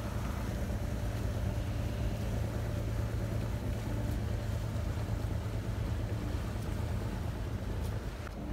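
Boat engine running at a steady low drone, heard from aboard a motorboat on the harbour water.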